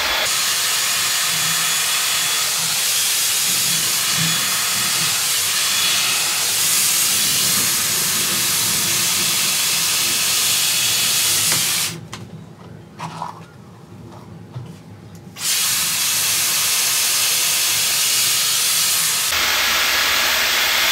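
Dyson Airwrap hair styler blowing a steady rush of hot air on its medium heat setting through the smoothing brush attachment. The airflow cuts out for about three seconds a little past the middle, then resumes.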